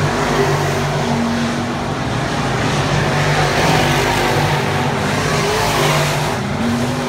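Several dirt-track race cars' engines running together on the oval, a loud, continuous engine din.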